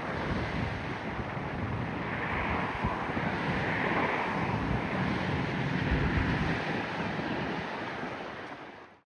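Steady rushing wind and road noise from a moving car, with wind buffeting the microphone and a low rumble underneath. It fades out near the end.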